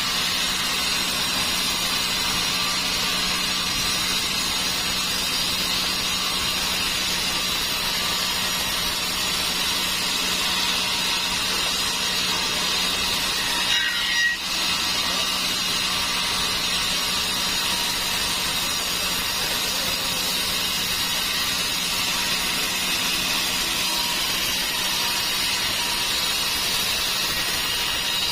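Sawmill saw cutting through a large dry teak log, a steady machine hum under an even rushing noise of the blade in the wood, with a brief break about halfway through.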